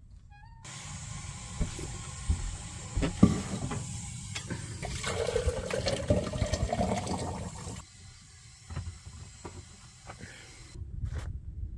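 Water poured from a kettle into a metal French press, a steady splashing pour whose pitch rises as the press fills, stopping about eight seconds in. A few knocks of the kettle and press being handled come before it.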